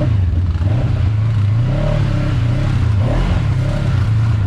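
Segway Fugleman UTV's twin-cylinder engine running at low, part-throttle revs, its note rising and falling a little.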